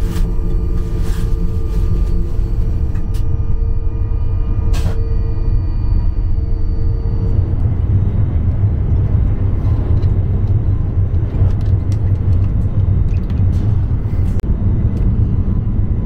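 Steady low rumble of an ICE high-speed train running, heard inside the carriage, with a few sharp clicks in the first five seconds and a steady hum that stops about seven seconds in.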